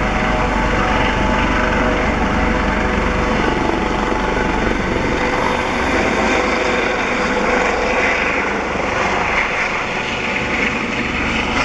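Eurocopter AS365 N3 Dauphin helicopter lifting off and flying forward: a steady whine from its twin turbine engines and Fenestron ducted tail rotor over main-rotor noise. The low rumble thins about halfway through while the higher whine carries on.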